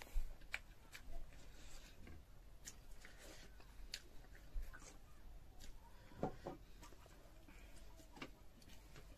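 Quiet eating sounds from two people eating noodles with their hands: scattered soft clicks and smacks of chewing and slurping, and fingers working food on the plates.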